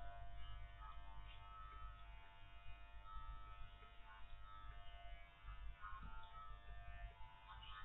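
Electric dog-grooming clippers running with a steady, faint buzz while trimming a Spanish water dog's curly coat.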